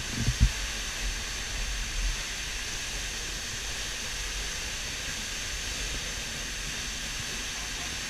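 Steady hiss of falling water from a rain-fed waterfall pouring off the canyon cliff into the lake, with a couple of low thumps near the start.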